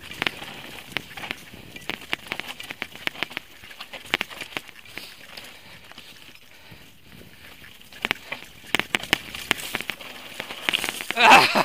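Mountain bike rattling and clattering down a stony trail: many quick sharp clicks and knocks from the bike and its tyres striking rocks, with a brief louder sound near the end.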